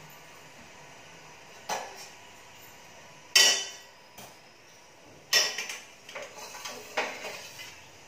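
Stainless steel cookware clanking: four knocks and clinks of metal on metal, the loudest about three and a half seconds in, as a steel pot is handled and lifted off a gas stove.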